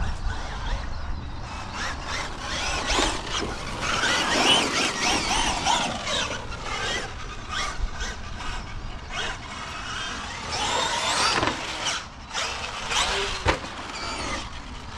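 Traxxas Maxx Slash RC short course truck running on 6S over dirt: the whine of its brushless electric motor rises and falls as the throttle is worked, over tyre and drivetrain noise. Near the end there is a single sharp knock.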